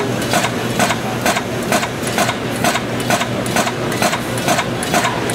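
Pneumatic cutter head on a servo-driven dual belt tractor feed shearing thin metal strip into blanks, a sharp clack about twice a second over a steady machine hum.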